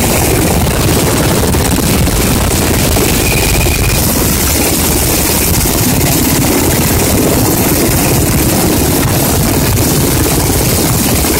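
Sikorsky UH-60 Black Hawk helicopter running on the ground, a steady turbine and rotor noise.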